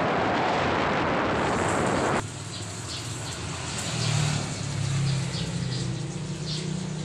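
Wind rushing over the microphone of a moving motorcycle, cut off suddenly about two seconds in. Then a quieter outdoor scene: a low steady hum with scattered short bird chirps.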